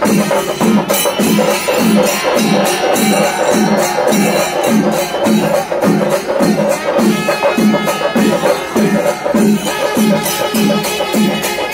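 Music with a steady drumbeat of about two beats a second, rattling percussion and sustained pitched notes over it.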